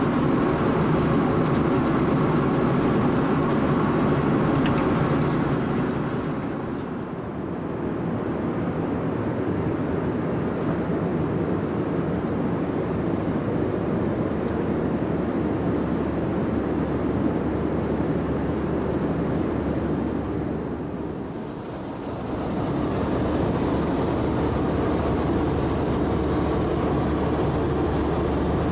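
Airbus A320 cabin noise in flight: a steady low rush of airflow and engines. It dips briefly twice, about seven and twenty-one seconds in, then returns to the same level.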